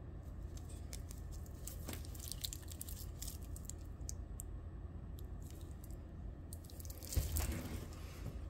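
Handling noise from cotton-gloved hands turning a wristwatch on a metal bracelet: scattered small clicks and rustles, with a louder rustle about seven seconds in as the watch is moved. A steady low hum lies underneath.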